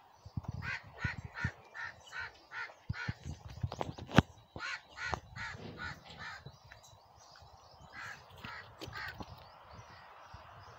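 A bird calling in a quick run of short repeated notes, about two or three a second, then a second, shorter run near the end. Soft knocks underneath, with one sharp click about four seconds in.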